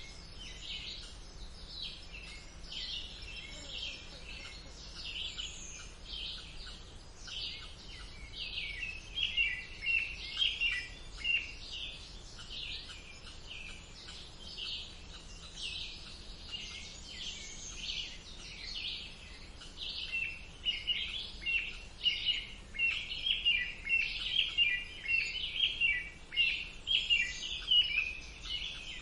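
A mixed chorus of summer songbirds singing at once, with many overlapping rapid chirps and trills. The singing grows louder and busier about a third of the way in and again in the last third.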